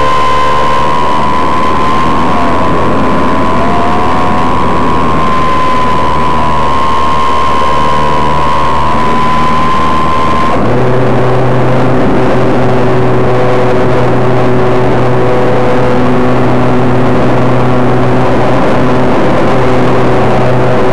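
Model airplane's motor and propeller running steadily, heard loud and close from a microphone on the airframe, with rushing air noise. About halfway through, the whine drops abruptly to a lower, steadier pitch.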